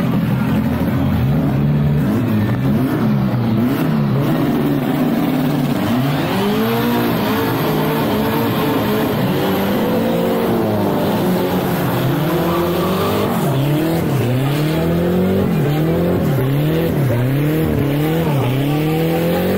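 A drag-racing car's engine revving. It runs with a wavering pitch at first, then from about six seconds in is blipped up and down in quick repeated revs, roughly one a second.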